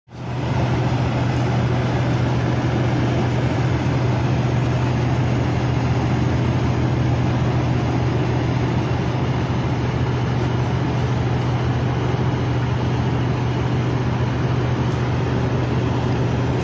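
Idling truck engines and traffic at a truck stop: a low hum under an even rush of engine noise that doesn't let up.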